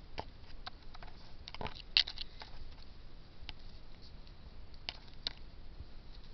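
Scattered light clicks and crackles from a thin black plastic nursery pot being handled on a lemon tree branch, the loudest a sharp click about two seconds in.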